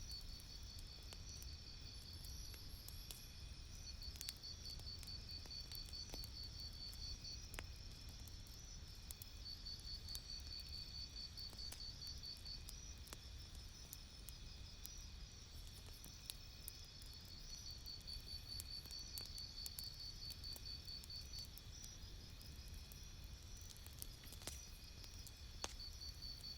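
Campfire crackling faintly with scattered sharp pops, over a low rumble. A high, rapidly pulsed chirping trill comes and goes in spells of a few seconds.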